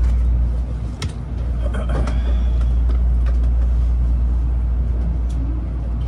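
Cabin noise inside a moving N700A Shinkansen car: a loud, steady low rumble of the train running, with a few faint clicks.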